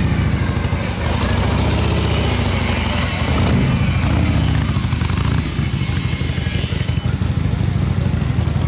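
Motorcycle engine running, a steady low rumble.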